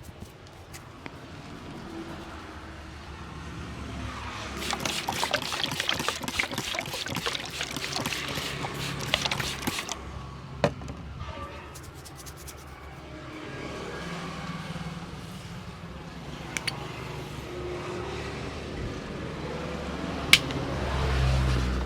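Hands massaging a head: a long run of fast, sharp tapping and rubbing strokes, then lighter scattered strokes, with one sharp crack near the end.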